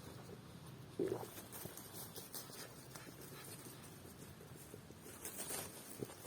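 Small dogs moving about on forest ground, a soft irregular patter and rustle of paws in leaf litter, with one brief louder sound about a second in.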